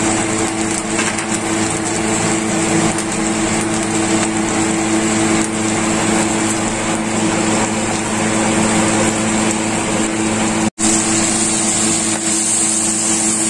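T-bone steak sizzling in foaming butter in a frying pan, over a steady mechanical hum. The sound drops out for an instant near the end.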